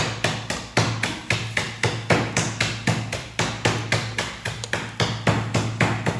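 Close-up chewing of a mouthful of grilled pork belly wrapped with grilled kimchi: sharp, crunchy chews about two to three a second over a steady low hum.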